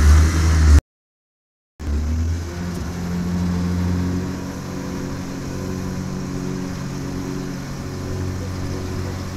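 Speedboat's outboard motor running steadily under way. The sound drops out completely for about a second just under a second in, then resumes at the same steady pitch.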